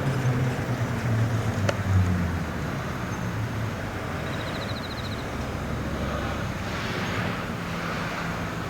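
A car's engine hum with road noise; the low hum shifts in pitch and is loudest about two seconds in, then settles into a steady rush. A brief high trill sounds about four and a half seconds in.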